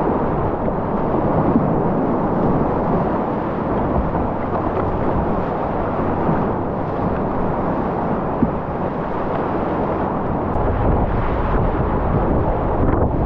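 Whitewater river rapids rushing steadily, with wind buffeting the microphone.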